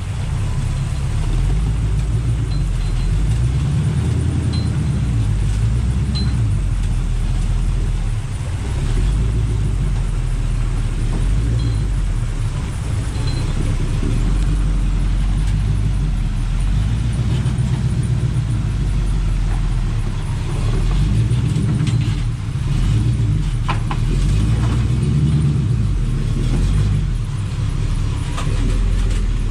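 Off-road vehicle engine running at low revs, a steady low rumble that swells and eases as the rock crawler picks its way over boulders, with a couple of light knocks about three-quarters of the way through.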